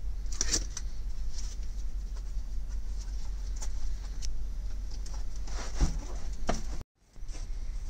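Scattered light taps, knocks and rustles of vinyl-covered interior wall panels being handled and fitted in a truck cab, over a steady low hum; the sound cuts out for a moment near the end.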